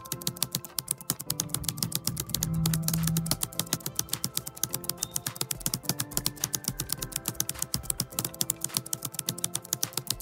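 Computer keyboard typing in a fast, even run of keystrokes, about ten a second, over background music.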